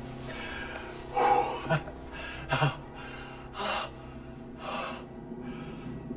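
A man sobbing and gasping for breath in ragged, uneven gasps, the loudest about a second and two and a half seconds in, over a faint steady low drone.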